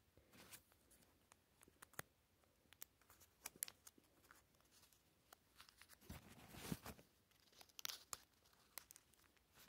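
Faint rustling and small scattered clicks of a tiny paper food wrapper being unfolded and handled, with miniature plastic toy pieces set down, loudest about six to seven seconds in.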